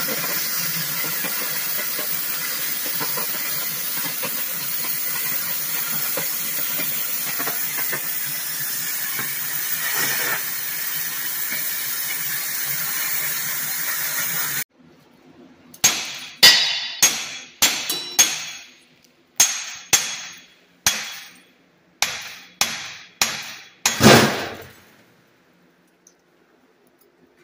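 Oxy-fuel cutting torch on a Victor DC2400 duplicator hissing steadily as it burns through 4-inch steel plate, stopping abruptly about fifteen seconds in. After that come about a dozen sharp metallic clanks, each with a short ringing tail, less than a second apart.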